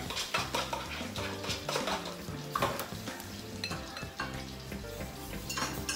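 A basting brush clicking and scraping against a ceramic bowl as a tomato-onion mixture is stirred, in many quick irregular knocks, over the faint sizzle of squid on the electric grill.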